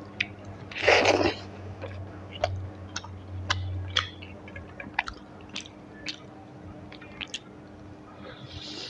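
Close-miked chewing of a mouthful of rice and curry: many short, wet mouth clicks and smacks, with one louder, noisier smack about a second in.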